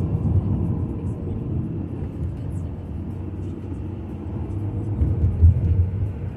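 Road noise inside a moving car: a steady low drone, swelling briefly near the end.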